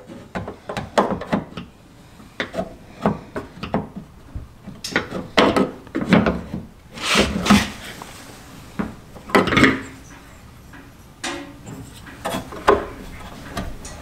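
Porsche door handle being pushed into and worked in the handle opening of a Mk2 Volkswagen GTI door: repeated clicks, knocks and scraping of the handle against the door. It binds, being a little too wide to seat.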